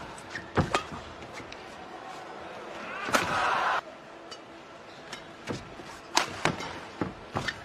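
Badminton rally: sharp racket strikes on a shuttlecock, spaced irregularly about half a second to two seconds apart. After a loud hit about three seconds in comes a short burst of crowd noise that cuts off abruptly.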